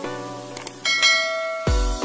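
Background electronic music: sustained synth notes, a bright bell-like chime about a second in, then a deep kick-drum beat starting near the end.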